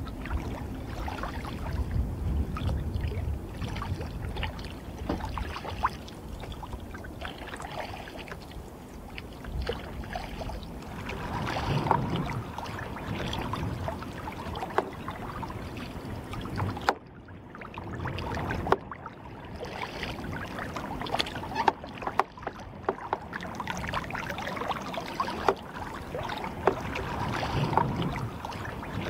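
Kayak being paddled: water splashing and dripping from the paddle blades and lapping against the hull, swelling and fading unevenly with the strokes.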